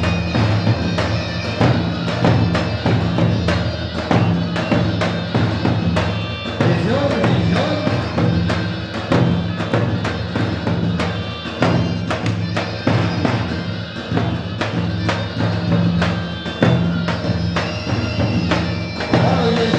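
Loud folk dance music with percussion: regular drum strikes over a sustained low note line, held at a steady beat.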